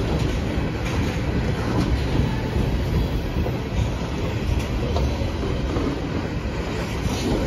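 Freight train tank cars rolling past close by: a steady rumble of steel wheels on the rails, with occasional clicks from the wheels.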